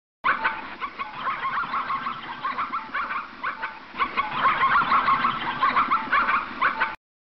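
A flock of farm fowl calling over one another in many short, overlapping calls, busier from about four seconds in. It starts and stops abruptly.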